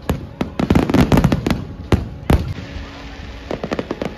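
Fireworks display: a rapid volley of sharp bangs and crackles for the first two seconds or so, thinning to a few scattered crackles near the end.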